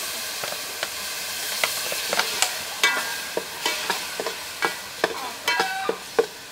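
A metal ladle stirring in a steel cooking pot, clinking against the pot about twice a second with short metallic rings. Under it is the steady hiss of food frying in oil.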